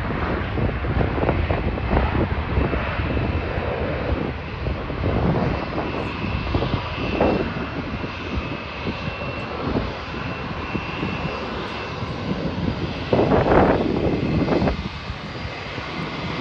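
Jet airliners' turbofan engines running on the runway: a steady rumbling roar with a faint high whine in the middle.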